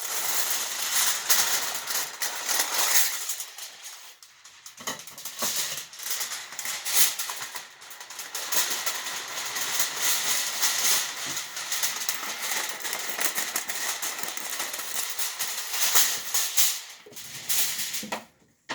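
Sheets of aluminum foil crinkling and crackling as they are handled, with a brief lull about four seconds in.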